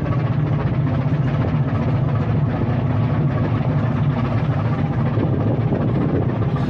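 A car ferry's diesel engines running steadily under way: a low, even drone with a rushing noise over it.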